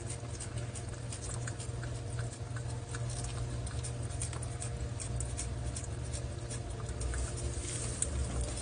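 A cat licking and lapping a lickable treat from a squeeze tube, making quick irregular wet clicks and smacks as it eats readily.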